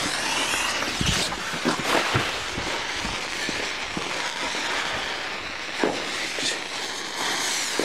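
Firework going off: a continuous fizzing hiss with many crackles and sharp pops, the loudest about one, two and six seconds in.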